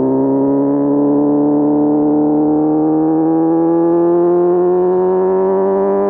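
Inline-four motorcycle engine pulling steadily under acceleration in one gear, its pitch rising slowly and evenly as the revs climb.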